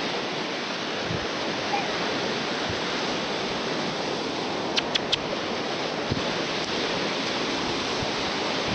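Steady wash of sea surf breaking on a sandy beach. Three short sharp clicks come close together about five seconds in.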